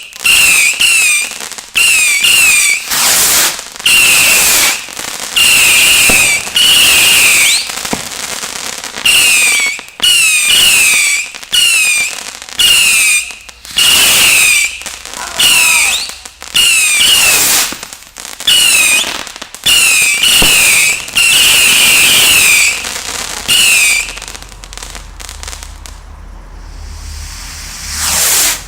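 Fireworks firing a rapid series of whistling shots, each a loud hiss carrying a shrill whistle that falls slightly in pitch. The shots stop after about 24 seconds, leaving quieter crackling, and a last one swells near the end.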